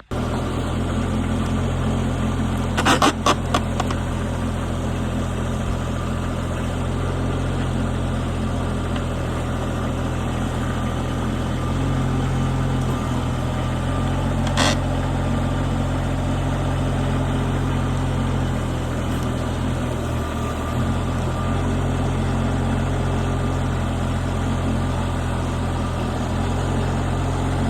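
The 23-horsepower diesel engine of a Rippa NDI665 mini skid steer running steadily. A quick cluster of metallic clanks comes about three seconds in and a single sharp knock about halfway through.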